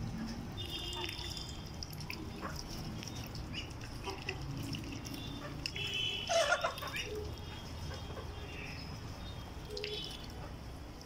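A mixed flock of chickens and ducks making short, high chirping calls here and there, with one louder call about six and a half seconds in. Small wet clicks of bills pecking and dabbling in the feeder trough run underneath.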